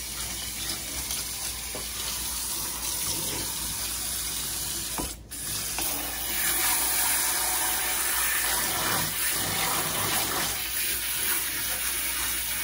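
Pull-down kitchen faucet sprayer running steadily, spraying water over a wet cat's fur and into a stainless steel sink. The spray dips briefly about five seconds in and comes back a little louder.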